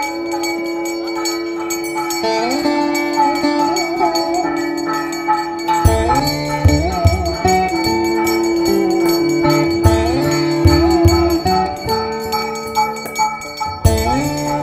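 Indian devotional instrumental music: an ornamented melody that slides between notes over a steady drone, with deep drum strokes joining about six seconds in.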